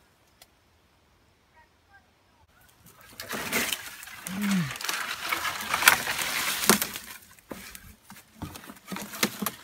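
Near silence for the first couple of seconds, then close rustling, scraping and knocking of things being handled right at the microphone. A single short low note rises and falls about halfway through.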